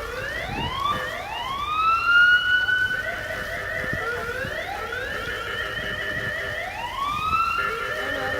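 Emergency vehicle siren wailing in repeated rising sweeps that overlap one another, with a quicker yelping stretch partway through.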